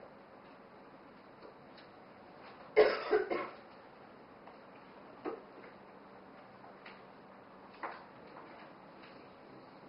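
A person coughing: a quick run of two or three coughs about three seconds in, over faint room tone with a few small clicks.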